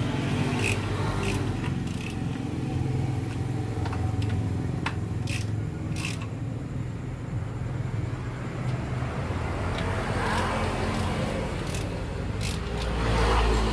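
Steady low motor hum with scattered sharp metallic clicks and clinks of hand tools on metal, and a louder swell of noise near the end.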